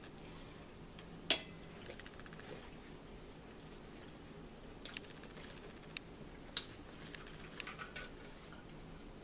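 Quiet eating at a table: chewing and a scattering of small clicks and taps, the sharpest about a second in and a few more in the second half, over a faint steady hum.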